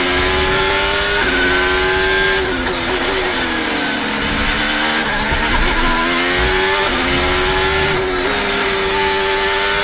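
Ferrari SF-25 Formula 1 car's 1.6-litre turbocharged V6 hybrid engine running hard on a flying qualifying lap. Its pitch holds high with quick gear changes, and twice falls away through downshifts under braking for corners before climbing again.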